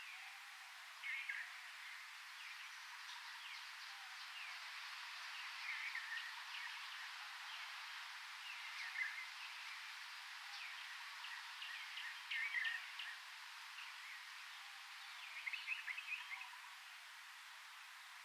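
Birds calling in short clusters of chirps every few seconds over a steady hiss of rainforest ambience.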